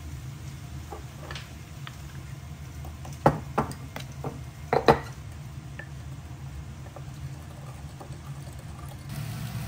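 Wooden spoon stirring sauce in a ceramic cup, knocking against the cup's sides, with a cluster of sharp taps about three to five seconds in, over a steady low hum.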